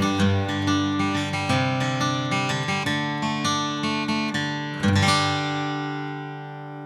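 Background music: acoustic guitar strumming chords, then one last strummed chord about five seconds in that rings out and slowly fades.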